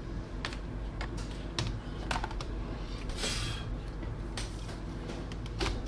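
Scattered clicks and light knocks of laptop parts being handled, with a short scraping rustle about three seconds in: the Dell Inspiron 15 5567's base assembly being lifted and moved onto its display during reassembly.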